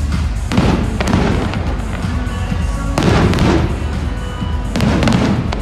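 Aerial firework shells bursting, four booms with crackling tails, over steady music with a heavy bass line.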